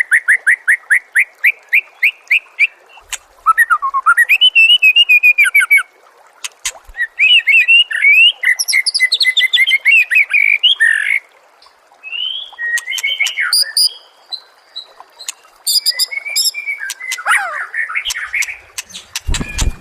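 A white-rumped shama singing a varied song: runs of rapid repeated notes, rising and falling whistles and trills, broken by short pauses. A dull low thump sounds just before the end.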